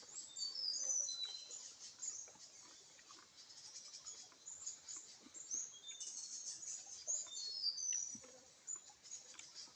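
Small birds chirping and twittering, many short high calls with quick rising and falling glides, with faint scattered clicks underneath.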